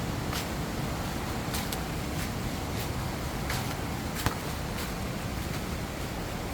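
Footsteps and rustling through forest undergrowth, with scattered twig snaps and crackles, the sharpest snap about four seconds in.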